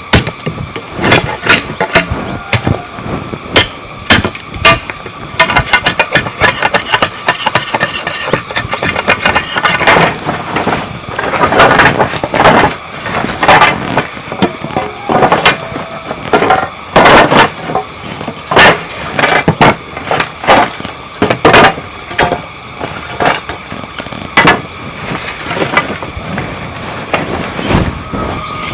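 Bamboo door construction with hand tools: irregular sharp knocks and taps on bamboo, with a denser run of quick rasping strokes about six to ten seconds in.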